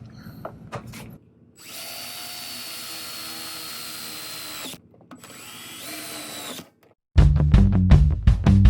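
Power drill driving self-tapping screws: two runs, about three seconds and then about one and a half, each with a steady motor whine. Loud music starts about seven seconds in.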